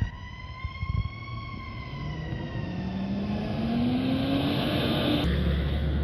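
Fire apparatus siren wailing in a slow rise and fall that fades out around halfway through, while a truck engine revs up. About five seconds in, the sound cuts to a truck engine idling close by.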